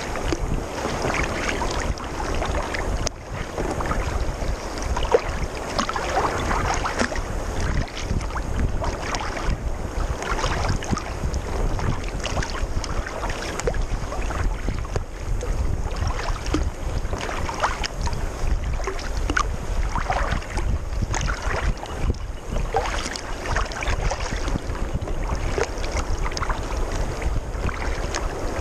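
Wind rumbling steadily on the microphone, over water splashing against a sea kayak's hull as it is paddled, the splashes coming every second or two.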